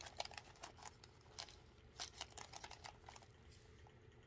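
Faint rustling and many small, scattered clicks from a coated-canvas wristlet and its packing stuffing being handled.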